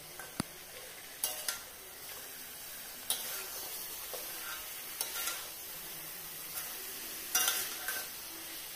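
Chicken pieces sizzling in oily onion-tomato masala in a metal kadai, the oil already separated from the spices, while a metal spatula stirs and scrapes through them in a handful of strokes a second or two apart.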